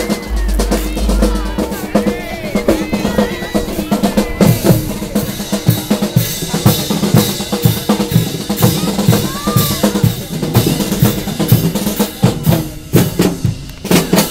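Marching band drumline playing a steady beat on snare and bass drums, the hits growing stronger about four seconds in as the band draws near. A low rumble sits under the first couple of seconds.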